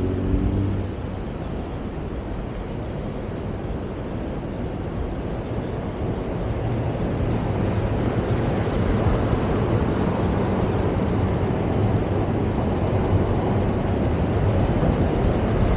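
Steady road vehicle noise with wind on the microphone, slowly growing louder toward the end. An engine rising in pitch fades out in the first second.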